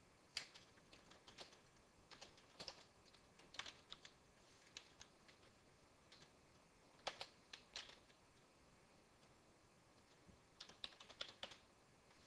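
Computer keyboard keys being typed, faint, in short irregular flurries of clicks with pauses of a second or two between them.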